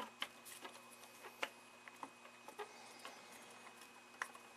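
Faint, irregular small clicks and ticks from hands working a screwdriver on a carbon potentiometer, taking out the screw that holds its plastic shaft in. The clicks come every half second or so, the sharpest about a second and a half in, over a steady faint electrical hum.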